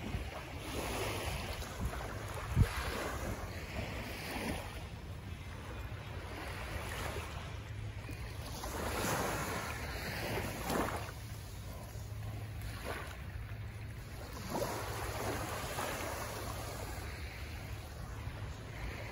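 Small waves lapping and washing up on a sandy beach, with wind buffeting the microphone. A single sharp knock about two and a half seconds in.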